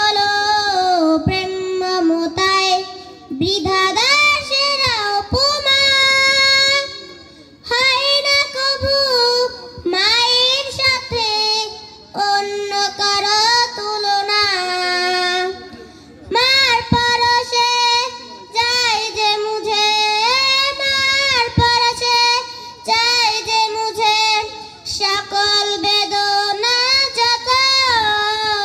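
A young girl singing a Bengali Islamic gazal solo into a microphone, unaccompanied, in melodic phrases with short breaths between them.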